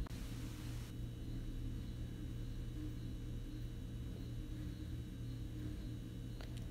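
Steady low hum with faint hiss, with a soft rush of noise in the first second. No distinct handling sounds stand out.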